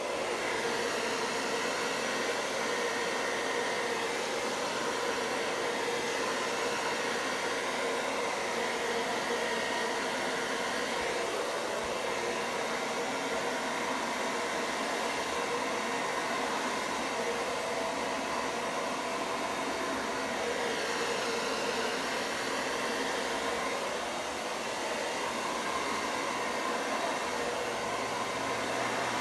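Hair dryer blowing steadily on a cool, medium setting, pushing wet acrylic paint across a canvas, its airflow dipping slightly about two-thirds of the way through.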